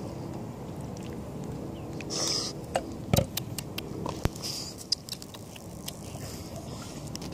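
Handling noise from a phone held in the hand: rubbing and a few sharp knocks and clicks, the loudest about three seconds in, over a low steady rumble.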